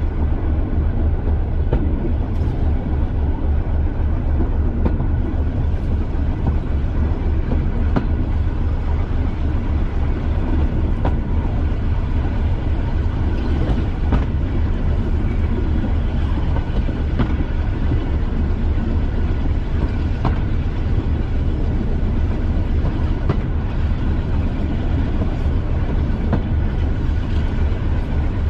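Class 205 'Thumper' diesel-electric multiple unit running along the line, its English Electric diesel engine giving a steady, rapidly pulsing low rumble. Occasional sharp clicks from the wheels on the track.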